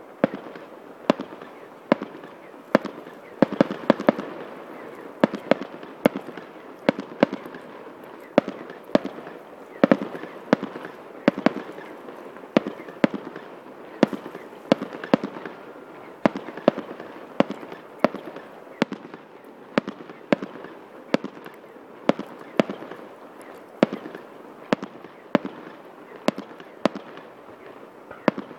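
Fireworks display: aerial shells bursting one after another, about one or two sharp bangs a second, over a steady background rumble.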